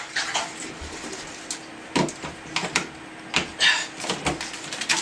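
Water draining from a sink, with several sharp knocks and clatter from handling.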